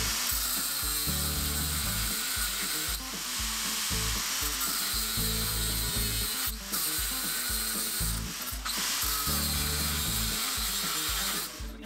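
A power tool cutting steel threaded rod: a continuous harsh, hissing cut with a few short breaks, the nuts already threaded on so that they can be run off afterwards to clean up the cut threads.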